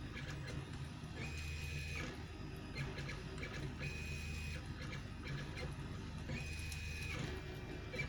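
Velleman K8200 3D printer running a print: its stepper motors buzz and whir, with a steady higher whine that comes in three times, each under a second, about two and a half seconds apart.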